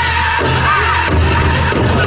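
Powwow drum group singing a song in high, bending voices over a big drum beaten in a steady pulse.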